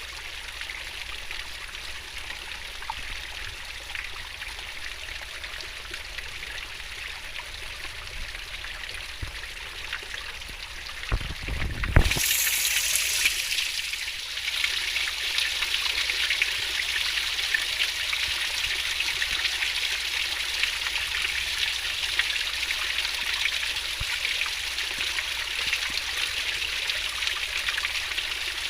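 Fast-flowing stream water rushing and splashing, a steady rush. About twelve seconds in there is a low rumble and a sharp thump, and after it the water is louder and brighter.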